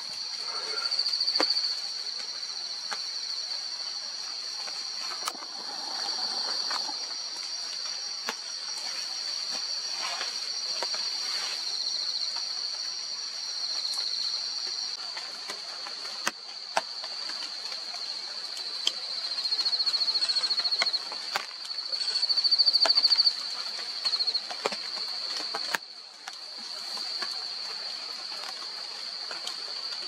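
Steady, high-pitched drone of tropical forest insects, swelling and pulsing in places, with a fainter second high tone that drops out about halfway through and scattered faint clicks.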